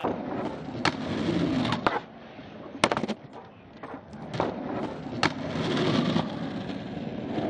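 Skateboard wheels rolling on smooth concrete, broken by several sharp clacks of the board's tail popping and the board landing, the loudest about three seconds in. The rolling drops quieter for a couple of seconds mid-trick, then picks up again.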